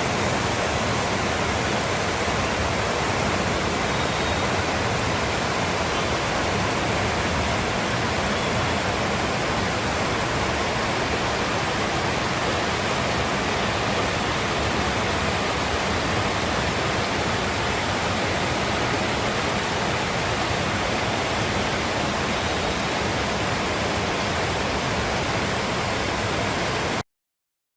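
Heavy rain falling in a steady downpour, an even, unbroken hiss that cuts off abruptly near the end.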